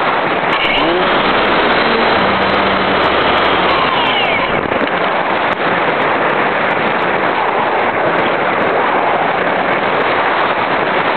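Wind rushing over the microphone of a camera riding on a radio-controlled Thrush glider in flight: a loud, steady rush of air. Faint whines rise and fall in it during the first few seconds.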